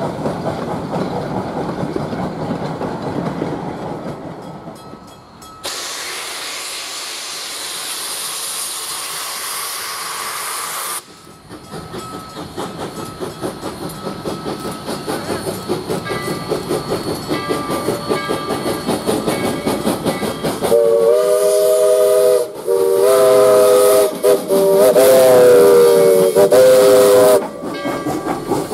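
Narrow-gauge steam locomotives working: a rhythmic beat of exhaust and wheels, a stretch of steady steam hiss, then a faster rhythmic beat as a train draws close. Near the end a steam whistle sounds a chord of several tones in three long blasts with short breaks.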